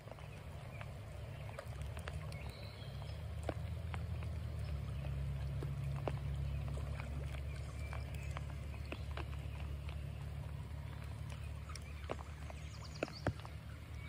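Rain falling on a creek, with scattered sharp raindrop ticks close to the microphone over a steady low rumble.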